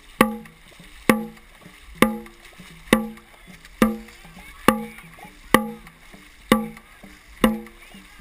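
Dragon boat drum struck at a steady beat, about one strike a second, each hit a sharp thump with a short ringing tone. The beat sets the stroke rate for the paddlers.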